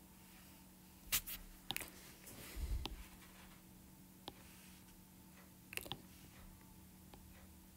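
Stylus tapping on an iPad's glass screen: a few scattered faint clicks over quiet room tone, with a dull low thump a little under three seconds in.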